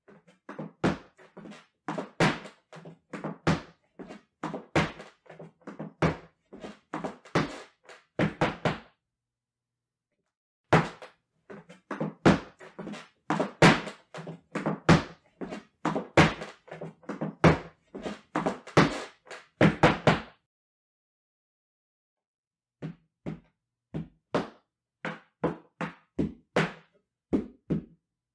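Yucatecan folklórico zapateado: heeled boots striking a wooden dance platform in quick rhythmic runs of heel and toe taps. The footwork comes in three passages, broken by pauses of about two seconds about a third of the way in and again about two thirds in.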